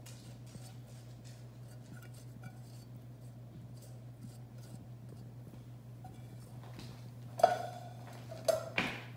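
Faint scrapes and small clicks of a spatula working sauce out of a metal saucepan over a glass baking dish, over a steady low hum. Near the end come three sharp clanks with a short ring, as the cookware is knocked and set down.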